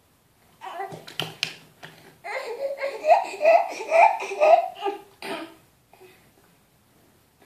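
Laughter: a rapid string of short, rising 'ha' sounds lasting about three seconds, loudest in the middle, after a few brief noises and clicks.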